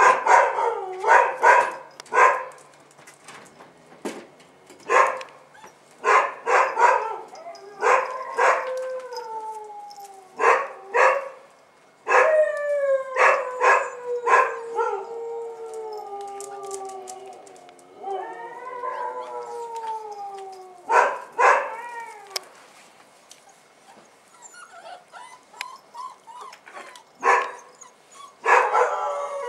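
Bull terrier puppies yelping and whining: runs of short, high yelps, with long falling whines drawn out over a few seconds in the middle.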